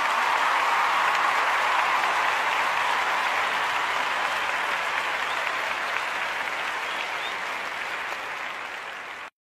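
Crowd applauding as a song ends. The clapping slowly fades, then stops abruptly near the end.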